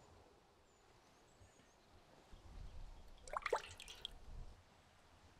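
Water drops falling into a rusty metal barrel full of water: a quick run of plinks and small splashes about three and a half seconds in, over a low rumble.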